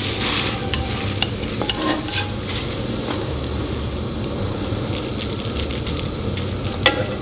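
Chopped dried laver stir-fried in perilla oil: a soft sizzle with the scraping and light clicks of wooden chopsticks stirring it in the pan.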